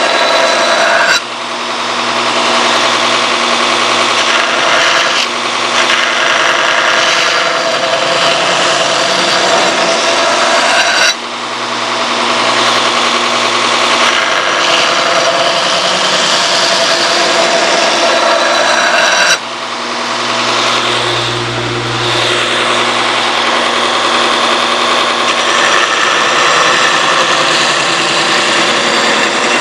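Electric grinder running steadily while grinding the flat sides of a steel knife blank, a loud continuous grinding noise. Three times it drops off suddenly for a moment, then builds back up.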